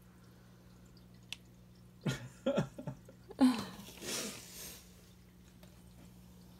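A person's short non-speech vocal sounds: a couple of brief murmurs about two seconds in, then a louder breathy burst about three and a half seconds in, over a faint steady hum.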